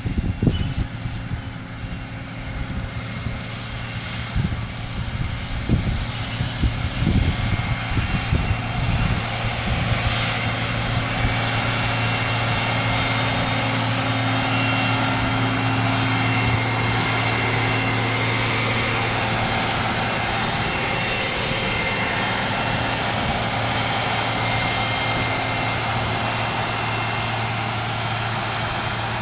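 ARTEC F40 self-propelled crop sprayer's diesel engine running steadily as the machine drives past, a low hum that grows louder over the first ten seconds and then holds. Wind buffets the microphone in the first several seconds.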